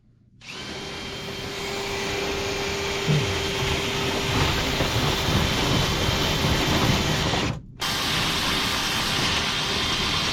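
Power drill running steadily, spinning a rotary dryer-vent cleaning brush through the duct, with a brief break near the end before it runs again.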